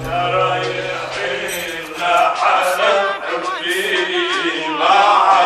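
Music: male voices singing a slow chant with wavering, ornamented pitch, over a low held note that fades out about a second and a half in.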